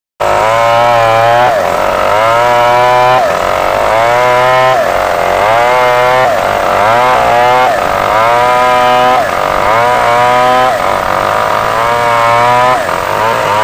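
Stihl MS 381 two-stroke chainsaw ripping lengthwise through a large log at full throttle. The engine pitch repeatedly climbs and then drops sharply, about every second and a half.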